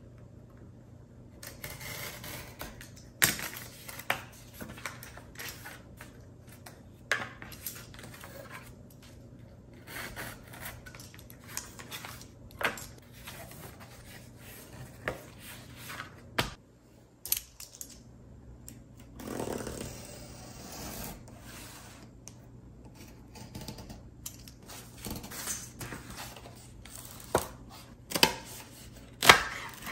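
Cardboard being cut with a utility knife and handled on a cutting mat, heard as scraping and rubbing with scattered sharp taps and clicks.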